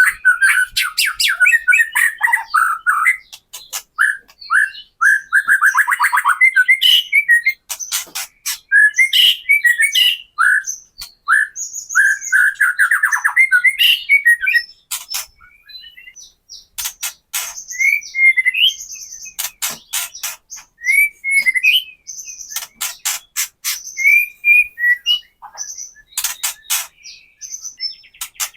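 White-rumped shama (murai batu) singing: loud whistled phrases interleaved with rapid, dry clicking rattles, the 'kretekan' call used to provoke other shamas into singing.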